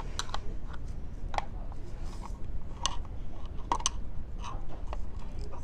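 Irregular light clicks and taps of parts being handled as someone tries, without success, to work a speaker loose from an old AM/FM radio.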